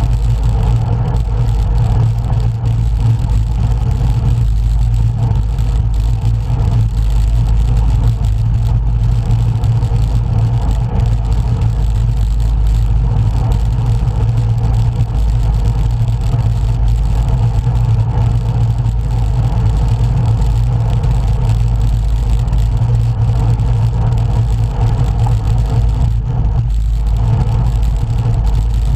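Steady, loud wind rumble on the microphone of a camera riding along on a road bike, with no change or break.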